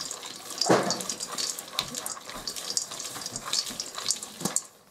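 Oiled squash and pumpkin seeds being stirred with a spatula in a stainless steel bowl: a steady scraping rattle made of many small clicks, with one louder clunk just under a second in.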